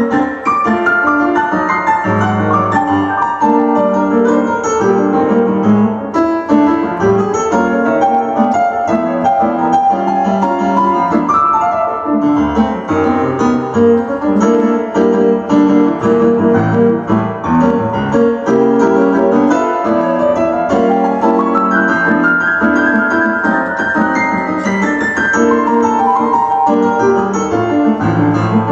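Piano playing a flowing passage of arpeggiated chords, with runs of notes climbing upward several times.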